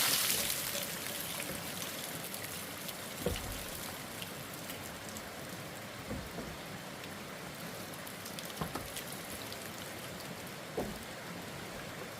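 A steady hiss like rain or sizzling, with a few soft knocks every two to three seconds.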